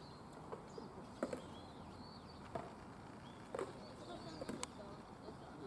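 Small birds chirping off and on, with a handful of sharp, separate clicks and knocks scattered through.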